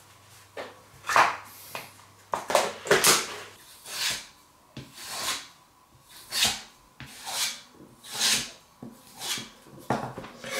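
Knife blade drawn along a leather strop on a wooden block, a swishing stroke about once a second, which hones the edge of the restored blade. A few knocks and rubs from handling come first.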